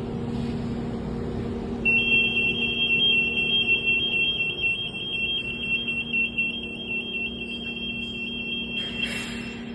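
Fire alarm sounding a single steady high-pitched electronic tone while the system is tested during commissioning. It starts about two seconds in and stops shortly before the end, over a steady low hum.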